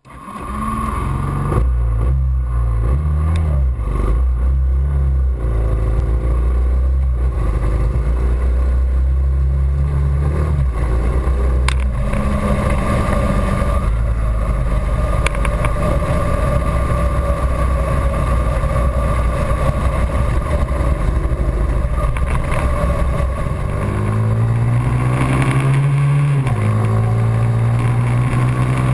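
Kawasaki KMX 140 dirt bike engine running under way. The engine note steps up and down with the throttle and gear changes, rises as the bike speeds up near the end, and drops sharply at a gear change.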